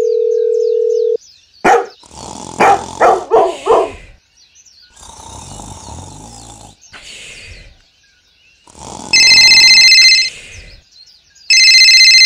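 A steady beep lasting about a second, then a quick run of four or five short barks. Two loud bursts of electronic ringing follow near the end.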